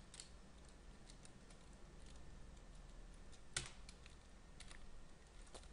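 A few scattered computer keyboard keystrokes over faint room hiss, the loudest about three and a half seconds in.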